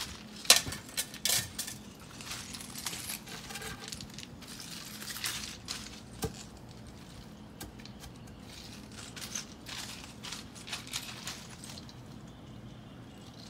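Stones of a river-rock gravel bed clinking and crunching, with a few sharp knocks in the first second and a half and scattered clicks later. A shovel is set aside and a wooden 4x4 post is stood and steadied in a freshly dug hole.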